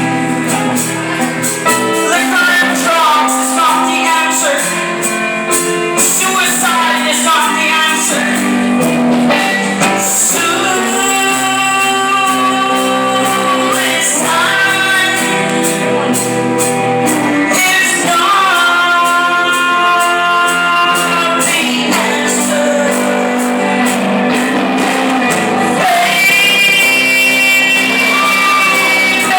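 A woman singing a song live over instrumental accompaniment, with several long held notes.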